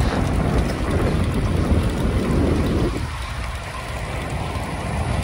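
Wind buffeting the microphone of a camera on a moving road bike, mixed with tyre and road noise; the rumble eases a little about three seconds in.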